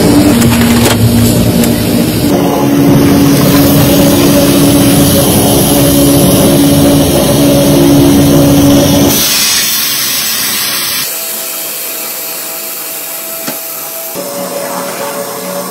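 Industrial rubber mixing machine running: dense, steady mechanical noise with a motor hum. It becomes noticeably quieter from about nine seconds in and drops to a much lower, thinner level near eleven seconds.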